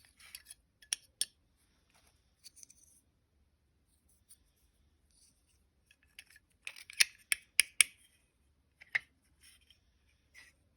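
Small hard parts being handled: scattered light clicks and brief scrapes, with a quick run of sharper clicks about two-thirds of the way through.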